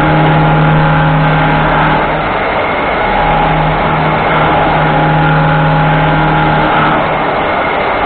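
UDM-2216 three-axis CNC machining center running while milling a metal plate: a steady machine whine over a constant noise. A low hum drops out for about a second a little over two seconds in and again near the end.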